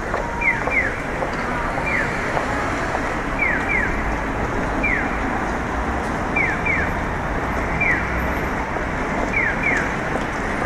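Busy city street: a steady wash of traffic noise, with short, high, falling chirps that repeat about every second, often two close together.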